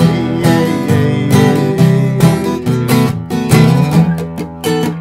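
A 1971 Yamaki acoustic guitar strummed in a steady, rhythmic E-minor folk accompaniment, playing an instrumental break with no singing.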